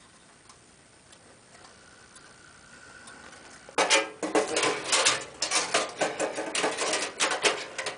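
Thin sheet-metal I/O backplate rattling and clicking against the PC case's rear cutout as it is pushed and worked into place, a dense run of clicks starting about four seconds in after a quiet spell.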